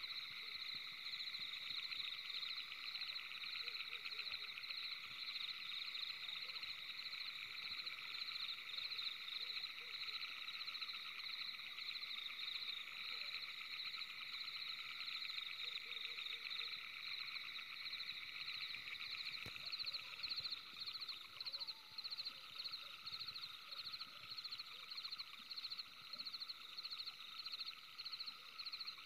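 Dense, steady chorus of high-pitched trilling animal calls. From about twenty seconds in, a higher pulsing call stands out, about two pulses a second.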